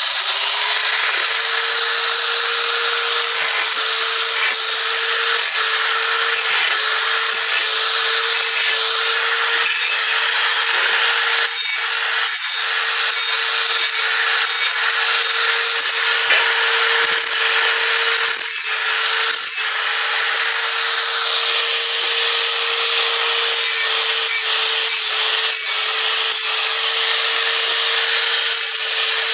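Electric angle grinder with a metal-grinding wheel (A24R grade) running steadily with a constant high whine, grinding down the sharp corners of a steel tractor drawbar part.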